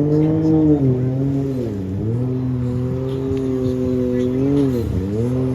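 Off-road vehicle engine running at a steady pitch. The revs dip briefly twice, about two seconds in and again near the end, and pick back up each time.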